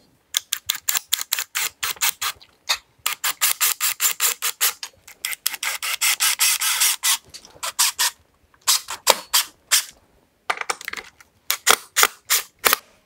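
DeWalt cordless drill driving screws through a steel mounting bracket into wood, running in several bursts with rapid clicking.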